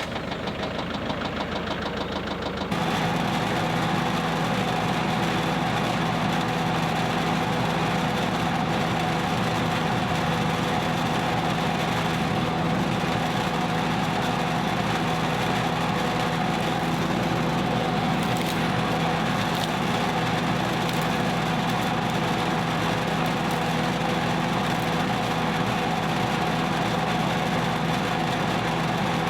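Engine running steadily, powering a Woods wood chipper; it gets louder about three seconds in, then holds an even speed.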